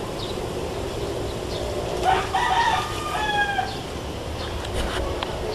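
A rooster crows once, about two seconds in, in several linked parts with a slightly falling last note lasting under two seconds, over steady outdoor background noise.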